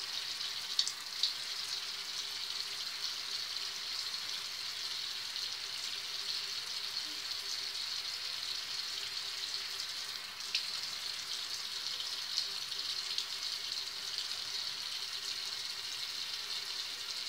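Steady high background hiss with a faint hum, with a few faint wet clicks from face-mask powder being mixed with water into a paste in the hands.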